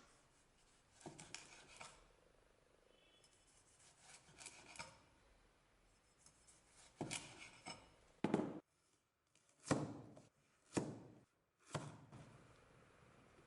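Restored butcher's cleaver chopping food: a few soft cuts in the first half, then five sharp chops about a second apart in the second half.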